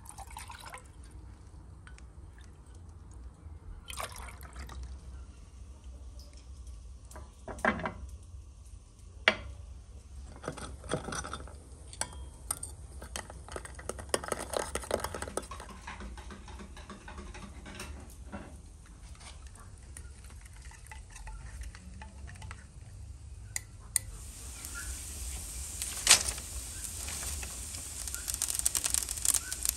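Water poured into a copper cezve, then a metal spoon stirring and scraping coffee grounds in the pot, with scattered clinks and knocks of crockery. From about two-thirds of the way through, a wood fire crackling with many sharp pops over a steady hiss.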